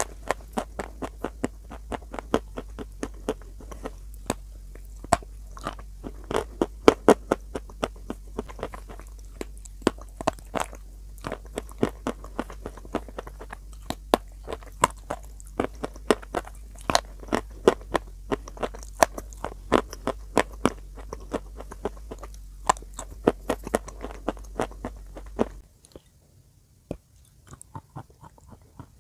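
Close-miked crunching and chewing of chalk pieces coated in clay paste: a dense run of sharp, crackling bites and crunches. A low steady hum under the first part stops suddenly near the end, and the crunches after it come more sparsely.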